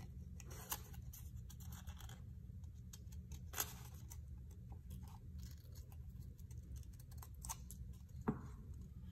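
Scissors cutting around a paper flower cut-out: several sharp snips spread out, with paper rustling between them.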